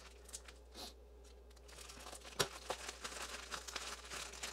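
A plastic shipping bag being handled and torn open, crinkling. Quiet at first, with a sharp tap about halfway through, then steady crinkling to the end.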